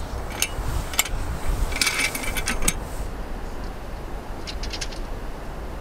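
Scattered light clicks and metallic clinks of handled equipment, with a brief cluster about two seconds in, over a low steady rumble.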